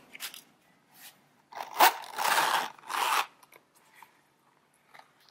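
Crisp rustling and crinkling of packaging as a leather zippered pen case is lifted out of its box and handled. The noise comes in three short bursts from about a second and a half in, with a sharp click in the first, then a few faint taps.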